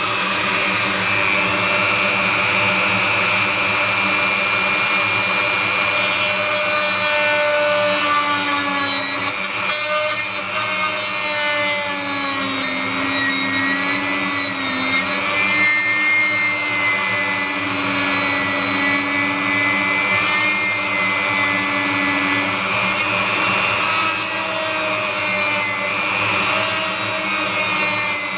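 Dremel 3000 rotary tool running continuously with a high motor whine as its bit grinds burnt fiberglass out of a circuit board; the whine wavers and dips in pitch as the bit is pressed into the work.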